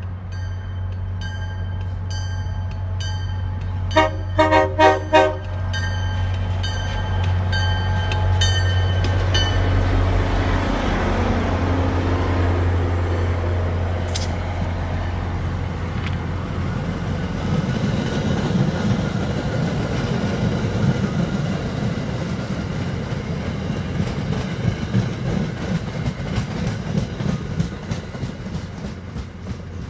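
MBTA commuter rail diesel locomotive approaching with a steady low engine drone and a bell ringing, sounding several short horn blasts about four seconds in. It then passes close by, the coaches rolling over the rails with a rushing, clicking clatter that fades near the end.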